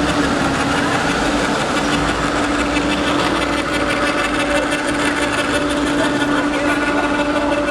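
Small 12-volt electric motor driving the floodgate sign's levers and pulleys, running with a steady, even hum.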